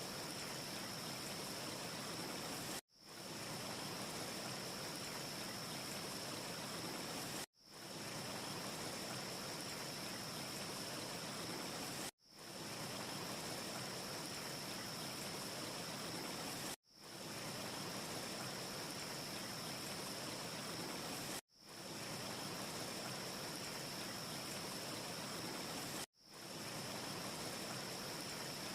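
A steady, even hiss of ambient noise with a brighter high band. It cuts out abruptly about every four and a half seconds, six times, and fades straight back in each time: a short recording played in a loop.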